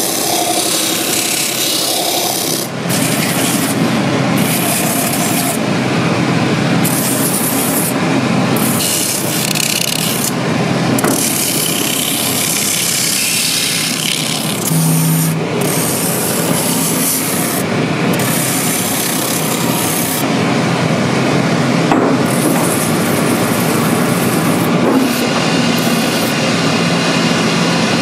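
Boot sole edge pressed against a spinning sanding wheel on a shoe-finishing machine: a steady, loud rasping grind. The high hiss drops out briefly several times.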